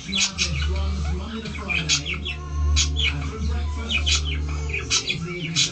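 Repeated short, high-pitched chirps from small animals, over a low steady hum that stops about five seconds in.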